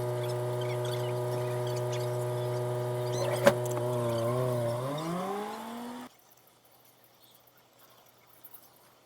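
A motor-driven workshop machine running steadily at one pitch, with a single sharp click partway through. Its pitch then climbs to about double over a second or so before the sound cuts off abruptly.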